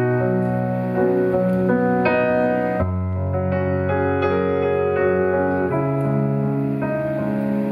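Piano playing slow, held chords: the introduction of a pop ballad before the vocals enter.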